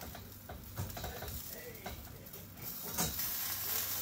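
A metal spatula and chopsticks click and scrape against a wire grill rack while a whole fish is being turned, with a sharper knock about three seconds in. Just before that knock, the sizzle of the grilling fish grows louder and then runs on as a steady hiss.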